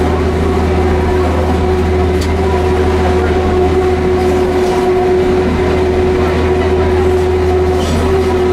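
Diesel railcar running along the track, heard from inside the cab: a steady engine drone with a constant-pitched hum and a couple of faint wheel clicks.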